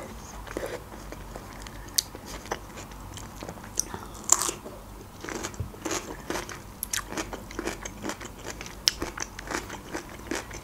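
A person chewing food close to the microphone, with wet mouth sounds and many irregular sharp clicks.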